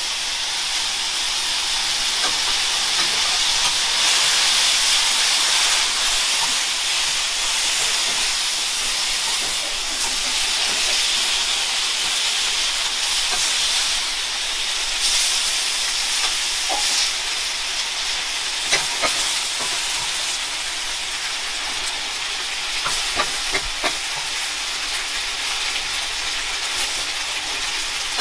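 Pork kimchi stir-fry sizzling steadily on a hot teppan griddle, a continuous high hiss. A few sharp clicks sound about two-thirds of the way through and again near the end.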